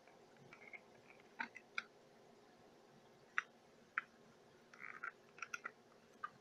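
Faint, irregular light clicks and taps of a small screwdriver and fingers handling an HO scale model locomotive's body shell.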